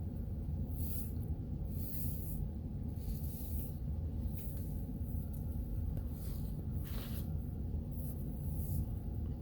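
A person eating a peanut butter sandwich close to the microphone, with about six short hissy breaths or mouth noises over a steady low rumble.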